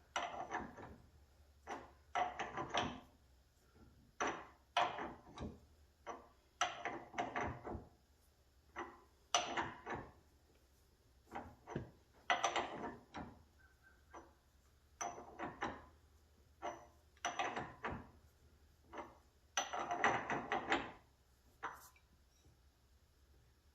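Hand tools and metal parts clinking and knocking in short irregular clusters, about one every second or two, during work to free a stuck nut on a hydraulic cylinder.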